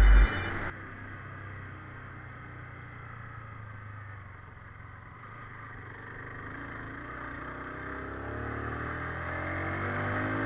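Motorcycle engine running under way, its pitch rising slowly in the second half as the bike speeds up. A music jingle cuts off suddenly within the first second.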